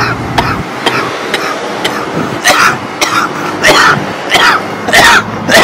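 A man coughing over and over, about one cough every half second, growing louder after about two seconds.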